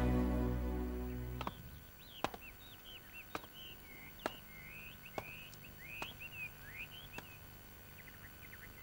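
Background music fading out over the first second and a half, then small birds chirping. Sharp knocks sound about once a second under the chirps.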